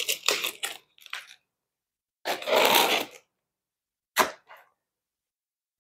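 A utility knife slicing the packing tape on a cardboard shipping box: a few short scratchy cuts, then a longer slit lasting about a second, and a sharp click a little after four seconds in.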